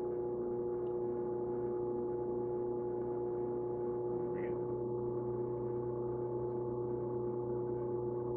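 Electric pottery wheel running at speed, its motor giving a steady hum of several even tones.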